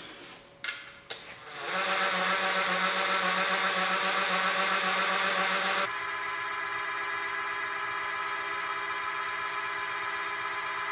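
Cordless drill spinning a Mitsubishi 4G63 engine's oil pump to prime it and push oil up to the cylinder head, a steady whir. It starts after a few clicks about two seconds in, and about six seconds in it drops to a quieter, steady run.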